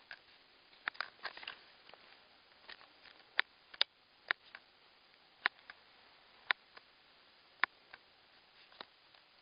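A series of short, sharp clicks at irregular intervals, about one a second, over a faint steady hiss.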